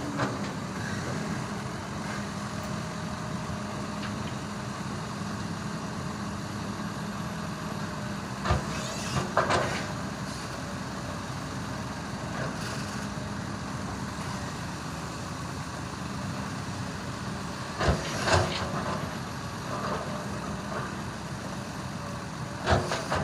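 Heavy truck engine idling steadily, with three short bursts of noise over it: about a third of the way in, a little past two-thirds, and near the end.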